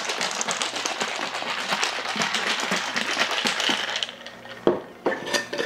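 Ice rattling hard inside a glass mason jar being shaken as a cocktail shaker, a dense continuous clatter for about four seconds. It stops abruptly, followed by a few separate sharp clicks as the jar's metal lid is handled.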